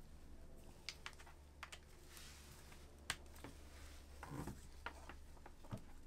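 Scattered light clicks and taps from gloved hands handling a smartphone and its USB-C cable on a desk, with a softer rustle about four seconds in, over a faint low hum.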